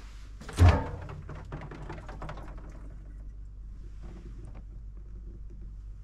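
A single heavy thunk about half a second in, followed by a couple of seconds of small clicks and rattles, over a steady low hum.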